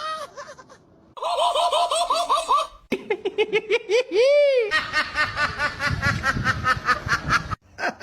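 Rhythmic laugh-like vocalising: quick repeated pitched pulses in several separate bursts that cut off abruptly. A single rising-and-falling whine-like call comes around the middle.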